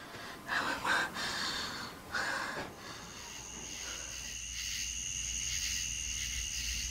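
A woman retching and heaving for breath in three short bursts, the sickness of morning nausea. About three seconds in, a steady high-pitched drone sets in.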